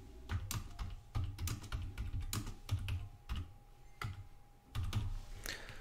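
Typing on a computer keyboard: a quick, uneven run of key clicks as a password is entered, pausing briefly near the end before a few more keystrokes.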